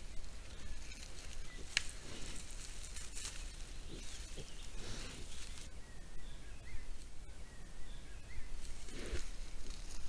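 Wild boar sow and her striped piglets foraging in dry grass and leaf litter: irregular rustling and snuffling, with a few faint low sounds from the animals. Faint bird whistles come in during the second half.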